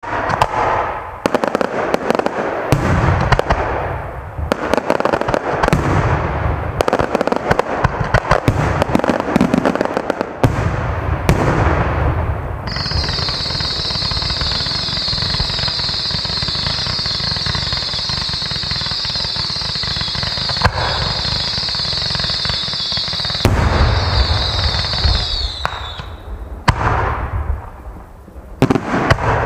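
Fireworks going off: dense crackling and bangs for roughly the first twelve seconds, then a steady high-pitched hiss held for about thirteen seconds with bangs underneath, and a few last bangs near the end. A ground fountain throwing sparks is among the pieces firing.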